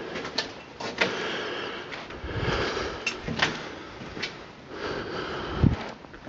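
Footsteps and scuffing on a path strewn with debris and leaves, with scattered sharp clicks and knocks from the handheld camera, and a low thump near the end.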